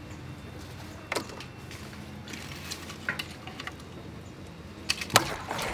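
Paper tissue burning as kindling among charcoal, with a few faint crackles and clicks. A cluster of louder knocks and clatter comes near the end.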